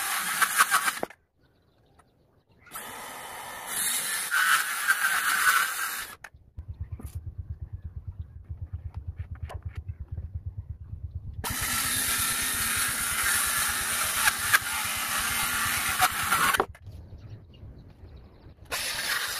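Bosch circular saw cutting 3/4-inch marine plywood, steady and loud, in short clips that cut in and out abruptly. In the middle comes a lower, fast-pulsing stretch of about five seconds, then more loud sawing.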